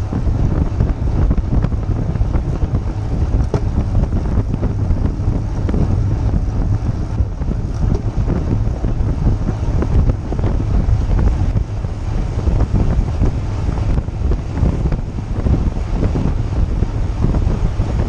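Wind buffeting a bicycle-mounted GoPro's microphone while riding at speed in a group: a loud, steady, low rumbling flutter.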